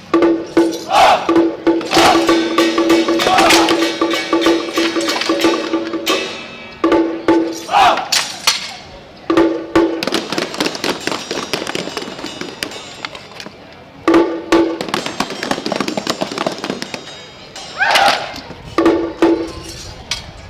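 Song Jiang Zhen troupe's drum and percussion beaten in rhythm, with a ringing tone that holds for seconds at a time and breaks off several times. The performers shout in unison over it, about a second in, several times in the first half and again near the end.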